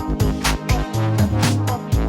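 Background music with a steady, quick beat, a bass line and brass.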